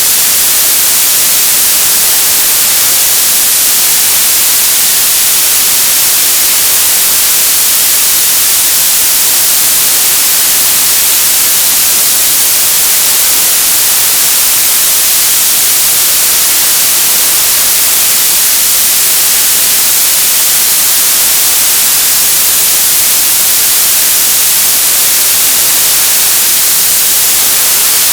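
Television static: a loud, steady hiss of white noise, even throughout and brightest in the treble.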